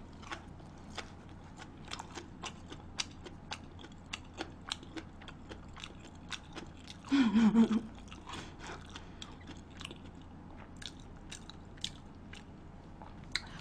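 A person chewing food close to the microphone: many small, irregular mouth clicks and crunches. A brief vocal sound comes about seven seconds in.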